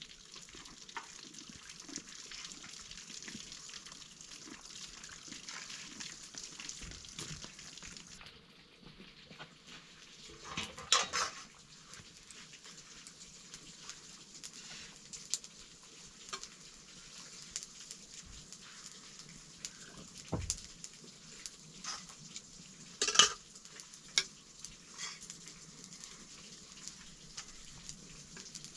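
Rice frying in a pan with a steady sizzle for the first several seconds, which then dies down. Afterwards a metal spoon clatters against the pan now and then, loudest twice, about 11 and 23 seconds in.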